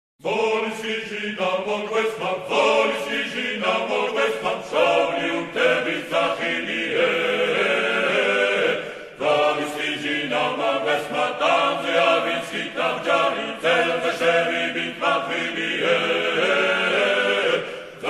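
A choir singing a chant-like song in several parts, in phrases with a short break about nine seconds in.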